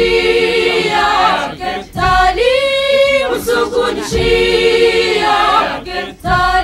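Unaccompanied singing voices, choir-like, in phrases with a few long held notes.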